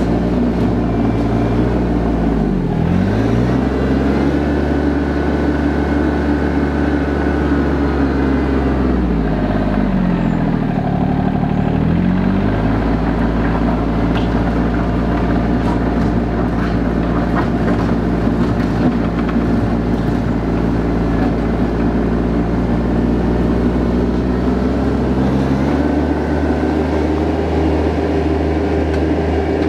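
RK 24 subcompact tractor's diesel engine running steadily as the tractor drives back and forth on a dirt path, its tone sweeping down and back up twice as it passes near, around 3 and 11 seconds in.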